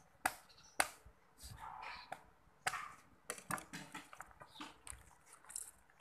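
A whole chicken being butchered on a wooden chopping block: a string of irregular sharp cracks and knocks as the carcass is cut and its joints are broken apart by hand.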